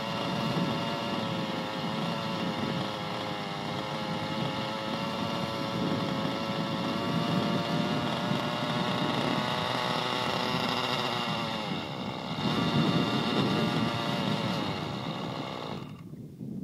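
Glow-fuel engine of a radio-controlled helicopter running with a steady buzzing pitch, which sags and wavers about two-thirds of the way through. The sound then stops abruptly near the end.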